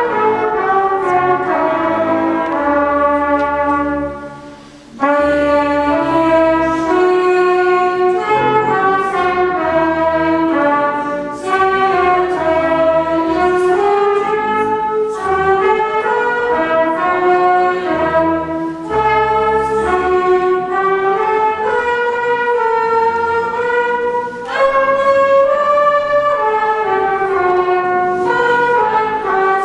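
Slow instrumental church music: sustained chords in phrases over a steady bass line, with a brief break about four to five seconds in.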